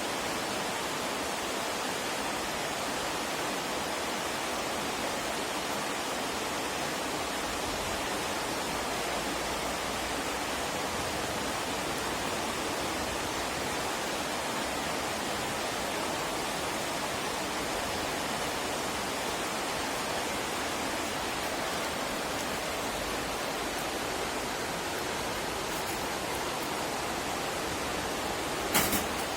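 Wood fire burning in a stainless steel fire grill: a steady hiss with a few faint crackles, and one sharp pop near the end.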